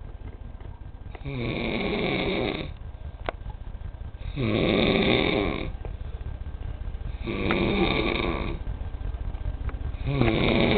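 Loud snoring: four long snores about every three seconds, each lasting about a second and a half, the last starting near the end.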